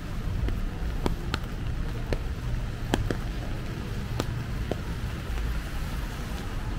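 Walking in steady rain and wind: a low wind rumble on the microphone over an even rain hiss, with a handful of sharp, irregular taps through the first few seconds.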